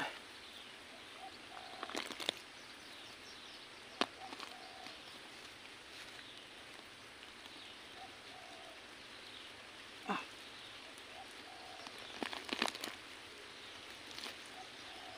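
Hands digging and scraping at soil and roots in an eel hole, giving a few scattered rustles and short sharp knocks over a quiet outdoor background. A few faint short chirps sound in the background.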